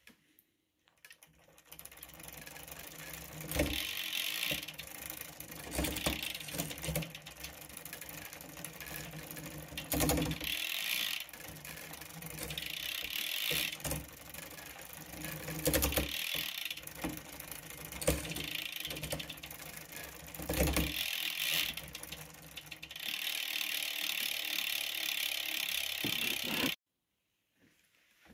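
Bicycle drivetrain turning on a work stand: chain running over the rear cassette through a modified rear derailleur. The freewheel ratchet buzzes in spells, and a sharp click comes every few seconds. The sound stops abruptly near the end.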